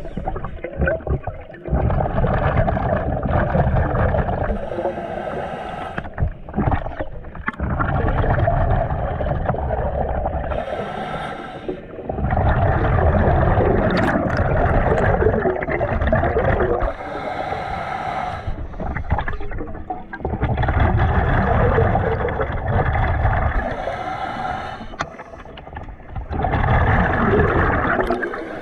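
Scuba diver breathing through a regulator, recorded underwater: a long rush of exhaled bubbles every five to six seconds, with a quieter, higher hiss from each inhale between them.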